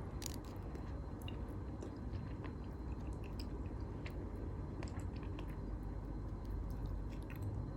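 A person chewing soft tteokbokki rice cakes, with small wet mouth clicks scattered throughout.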